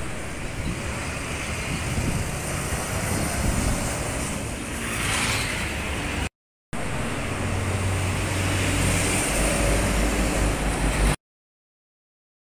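Intercity coach and road traffic passing close: engine rumble and tyre noise, with a brief hiss about five seconds in. After a short break in the sound, traffic continues with a low engine drone that grows louder near the end, then the sound cuts off to silence.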